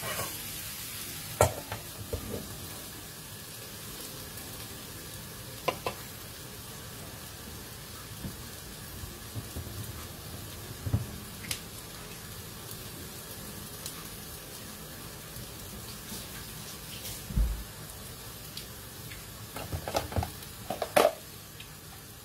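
Bitter gourd, egg and chillies sizzling steadily in a frying pan, with a few sharp metal clinks and knocks from the cooking utensil and the pan's lid, the loudest about a second in and near the end.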